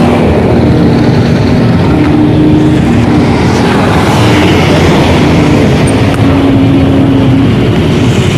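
Car driving in slow traffic, its engine and road noise heard from inside the cabin: a loud, steady rumble with a hum that shifts pitch a few times.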